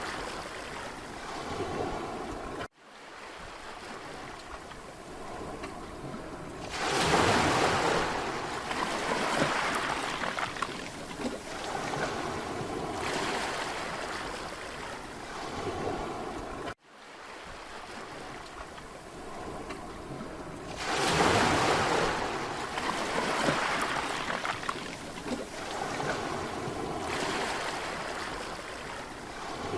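Mediterranean surf breaking and washing up a beach, with a steady wash and two bigger surges, about a quarter of the way in and again about two thirds in. The sound cuts out for an instant twice, evenly spaced, as if the recording loops.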